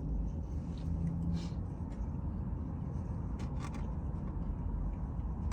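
Steady low rumble of a car, with a few faint clicks.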